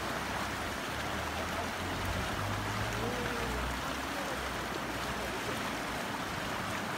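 Shallow mountain river rushing steadily over rocks and riffles.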